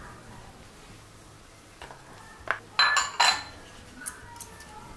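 Kitchen utensils clinking: a few scattered sharp clinks, with the loudest cluster about three seconds in ringing briefly.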